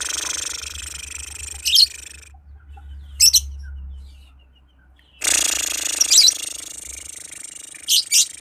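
Lovebird singing in long, rapid chattering trills, two extended runs a few seconds apart, mixed with sharp high squeaks. This is the sustained trill ('ngekek') that competition lovebirds are kept for.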